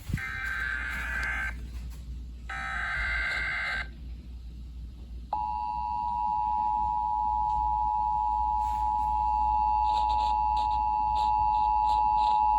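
Emergency Alert System SAME header: two about-one-second bursts of screechy digital data. About five seconds in comes the EAS two-tone attention signal, a steady dual tone at 853 and 960 Hz, which announces the start of an emergency alert, here a severe thunderstorm warning.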